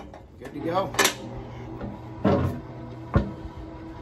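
Steel lid of a rotisserie barrel smoker being closed: metal clanks and knocks, ending in a sharp click near the end. A steady low hum starts about a second in, the smoker's rotisserie motor running.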